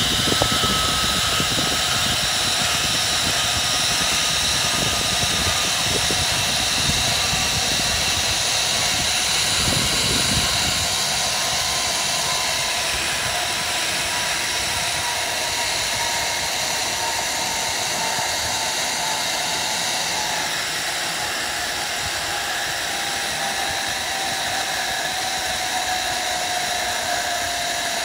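Zip-line trolley pulleys running along the steel cable with a steady whine that slowly falls in pitch, over a hiss of rushing air and wind buffeting the microphone, the buffeting heavier in the first ten seconds or so.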